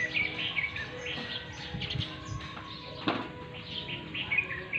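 Small birds chirping rapidly and repeatedly, with a brief louder sound about three seconds in.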